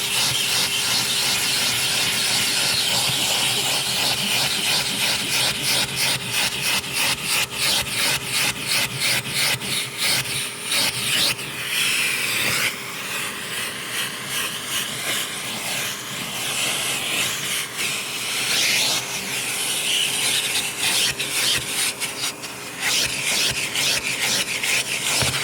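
Vacuum cleaner running over carpet with a steady motor hum, pushed back and forth in quick regular strokes that give a rhythmic rubbing swish. The strokes become slower and less even about halfway through.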